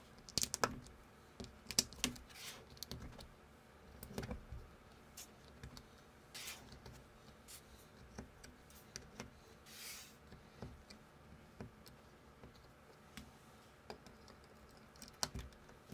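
LEGO-compatible plastic bricks handled and pressed together by hand: irregular small clicks as transparent red flame pieces are pushed onto the studs of a round plate, with a few brief rustles.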